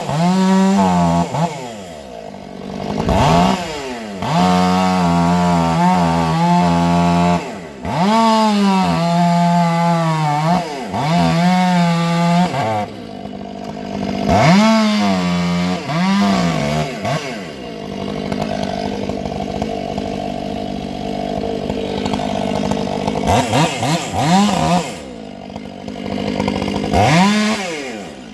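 Chainsaw cutting into a rotten, hollow tree trunk: the engine holds high revs, drops off when the throttle is released and climbs back up several times. Through the second half it runs lower and steadier, with two short revs near the end.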